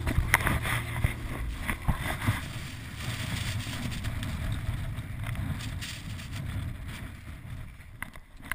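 Strong wind buffeting a chest-mounted GoPro's microphone while skiing fast through 80 mph gusts, with skis rattling over wind-packed snow and several sharp knocks in the first couple of seconds. It fades toward the end.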